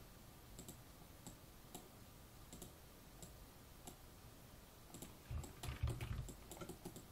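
Faint computer mouse clicks at irregular intervals while curves are being picked in the modeling software, with a quicker run of clicks and a few low thumps about five to seven seconds in.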